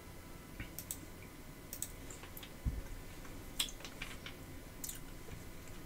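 Faint, scattered computer mouse clicks, about six spread over a few seconds, with one soft low thud about two and a half seconds in.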